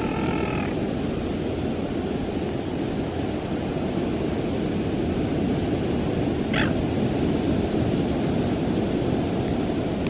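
Steady surf washing on a beach with wind buffeting the microphone. A short pitched call sounds at the very start and a brief sharp sound about six and a half seconds in.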